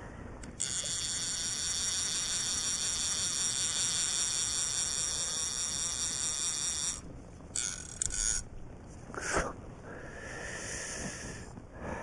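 Fly reel's click-and-pawl drag buzzing steadily as line is pulled off it, for about six seconds, then again briefly in a shorter pull.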